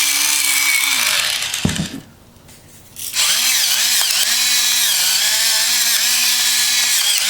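Electric salt and pepper grinder motor running in two goes: the first stops about two seconds in, the second starts about a second later and keeps going. A whine that wavers in pitch, over a dense grinding hiss.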